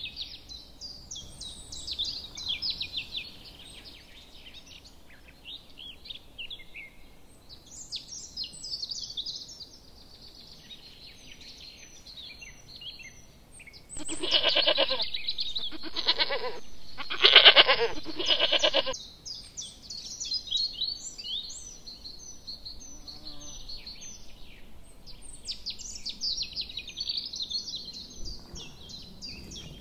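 Small birds chirping and singing throughout, and from about the middle a flock of sheep bleating: three long bleats in a row, the loudest sound.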